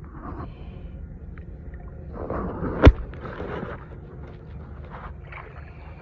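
Water splashing for a second or two beside a small boat, with one sharp knock in the middle, over a steady low rumble.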